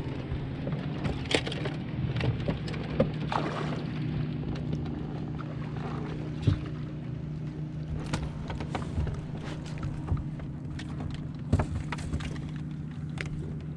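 A bass is landed over the side of a bass boat: scattered knocks and thumps of the fish and tackle being handled, over a steady low mechanical hum from the boat.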